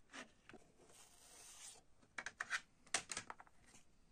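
A CD jewel case and its paper booklet being handled: sharp plastic clicks and taps, and a short rustle about a second in as the booklet slides out. A quick run of clicks and taps follows between about two and three and a half seconds in.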